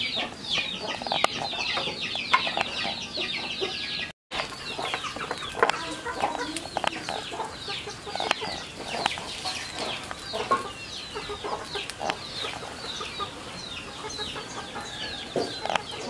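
Chickens clucking, with a steady stream of short, high chirps that fall in pitch, many each second. The sound cuts out for a moment about four seconds in.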